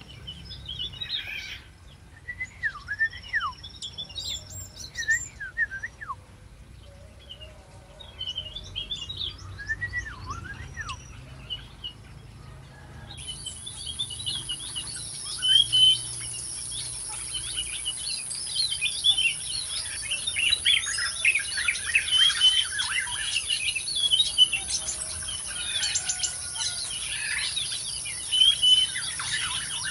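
Aviary birds calling, black-naped orioles among them: a few scattered whistles falling in pitch at first, then, about 13 seconds in, a dense, busy chatter of many short chirps over a steady high whine.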